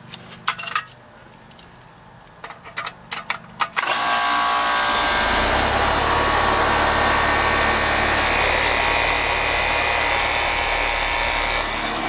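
Rheem 4-ton heat pump outdoor unit starting with a KickStart potential-relay hard-start kit on its compressor: a few clicks, then at about four seconds the unit comes on and runs steadily, with the compressor's low hum joining about a second later under the rush of the fan.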